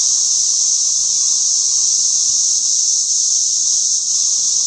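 Cicadas calling in a loud, steady, high-pitched drone that holds without a break.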